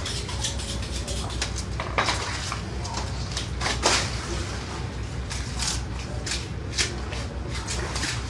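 Knife and hands working on a large arapaima on a wooden deck: irregular sharp scrapes and clicks, the strongest about two seconds in, near four seconds and near seven seconds, over a steady low hum.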